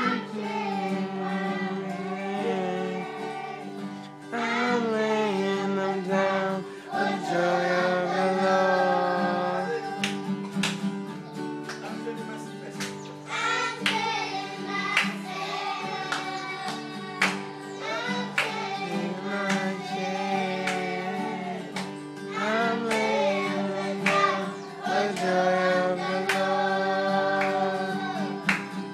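Schoolchildren singing a worship song together, with a guitar accompanying them.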